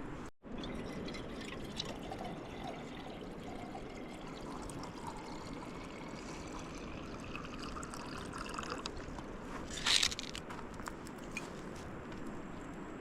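Water running steadily, with a brief louder noise about ten seconds in.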